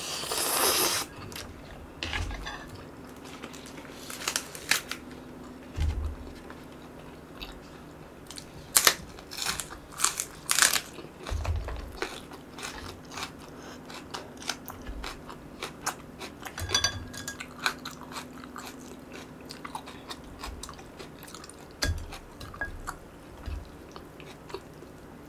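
A slurp of instant noodles in the first second, then steady chewing with scattered crisp crunches and small wet mouth clicks.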